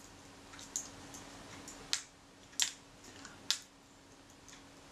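Small screws and a small screwdriver clicking as the screws are taken out of a Kodak Retina IIIc focus mount: four sharp, light clicks roughly a second apart, with a few fainter ticks between.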